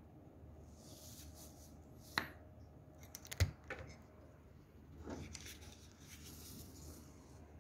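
Light taps and clicks of small objects being handled, the loudest a knock with a dull thump about three and a half seconds in, with faint rustling in between.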